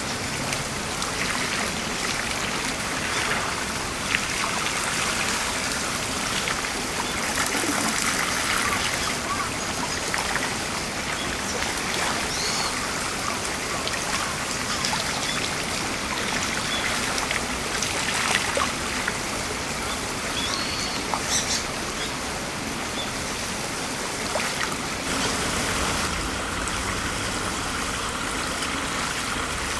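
Shallow stream trickling and rippling over gravel, a steady flow of water.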